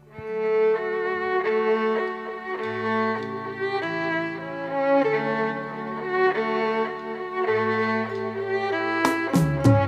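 Violin playing a melody of long bowed notes over held low accompaniment notes. Percussion strikes come in near the end.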